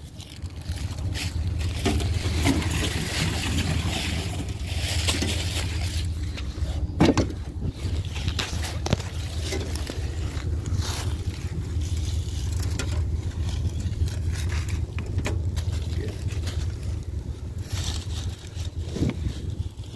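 Steady low hum under irregular rustling and scraping from handling and footsteps in dry leaves, with a few short knocks, the sharpest about seven seconds in.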